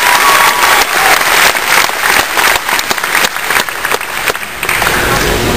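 Crowd applauding with many hands clapping, thinning out near the end.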